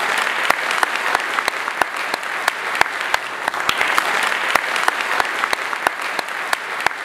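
Audience applauding, with one pair of hands clapping close by about three times a second over the crowd.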